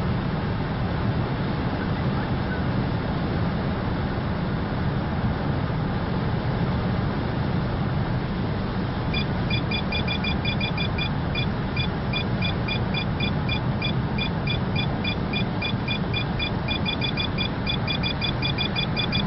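Steady road and engine noise heard inside a moving car's cabin. About nine seconds in, a Merlin SP radar detector starts beeping rapidly, short high beeps several times a second, warning of a speed radar ahead.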